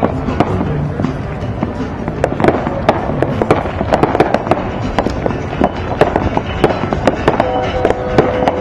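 Fireworks going off: a fast, irregular run of sharp pops, bangs and crackles.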